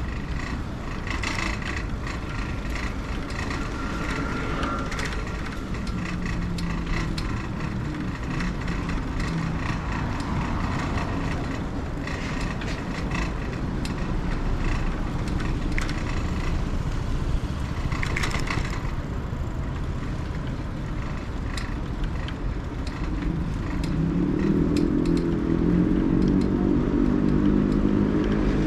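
Road traffic on a city street: a steady mix of passing cars and engines. An engine grows louder near the end as a vehicle draws close.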